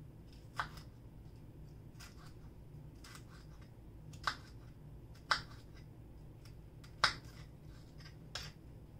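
Kitchen knife cutting a green bell pepper on a cutting board: about seven short, sharp knocks of the blade against the board at irregular spacing, the loudest about seven seconds in, over a steady low hum.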